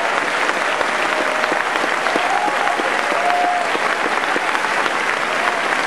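Large crowd applauding steadily, with a few voices cheering over the clapping.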